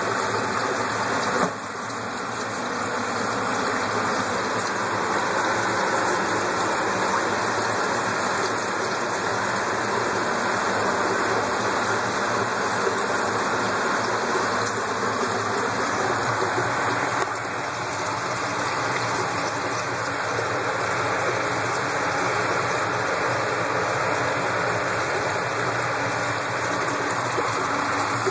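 Water pouring from a hose and running over a surface, a steady splashing rush.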